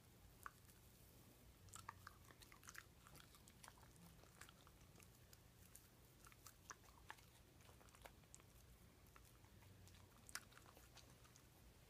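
Shiba Inu chewing and smacking on bites of banana cake: faint, irregular mouth clicks, busiest about two seconds in and with a sharp one near the end.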